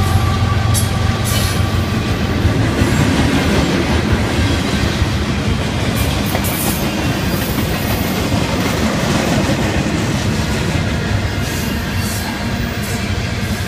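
Freight train cars, including covered hoppers, rolling past close by: a steady rumble of steel wheels on the rails, with scattered clicks and clanks as the wheels cross the rail joints. A locomotive goes by in the first second.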